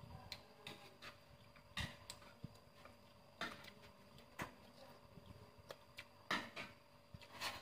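Faint, irregular clicks and smacks, about eight of them spaced unevenly, from eating and handling food at a table.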